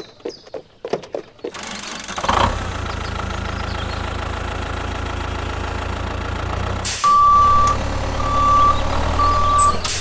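A vehicle engine running steadily, with a reversing alarm beeping three times near the end as the tractor backs up. A few light taps come before the engine starts.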